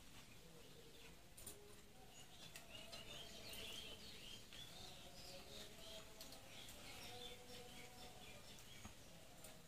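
Faint bird chirping in the background, strongest in the middle of the stretch. Soft clicks and mouth smacks of people eating rice and curry by hand from steel plates. Overall near silence.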